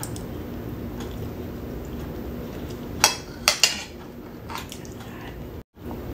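Metal spoon and fork clinking and scraping against a dinner plate: three sharp clinks about three seconds in, the first the loudest, then a few fainter taps.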